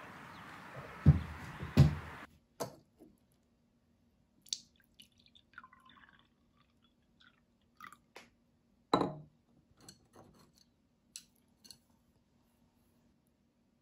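Open-air hiss with two dull thumps, then quiet breakfast-table sounds: coffee poured from a glass coffee server into a mug, and scattered knocks and clinks of the server and dishes being set down, the loudest about nine seconds in.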